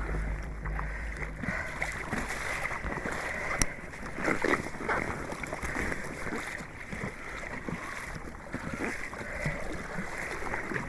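Water splashing and sloshing around a sea kayak being paddled, in uneven surges, with one sharp click a little over three and a half seconds in.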